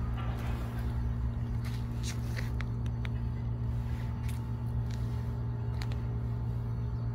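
A steady low mechanical hum under an uneven low rumble, with a few faint clicks.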